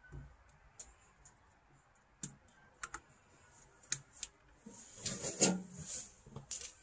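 Scattered light clicks and taps from hands working parts and tools during a windshield wiper motor installation. They are followed by a busier cluster of clicking and rattling from about five to six and a half seconds in.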